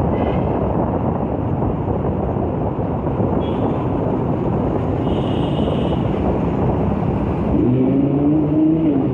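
Audi R8 V10 Plus's 5.2-litre V10 running through its exhaust in city traffic, mixed with engine and wind noise from the following motorbike. About a second and a half before the end the V10 revs up and holds the revs.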